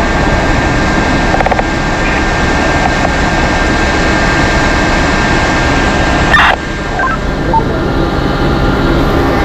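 Fire engine's motor and pump running in a loud, steady drone while supplying water, with a short loud burst about six and a half seconds in.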